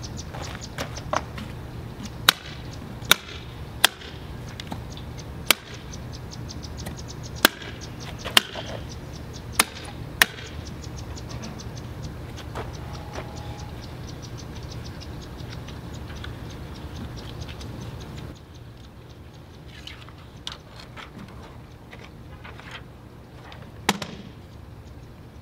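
Sharp snaps of the metal clips on a wooden contact printing frame being unlatched to open its back: about eight in the first ten seconds and one more near the end. Underneath runs a fast, steady ticking with a low hum, which drops away about two-thirds of the way through.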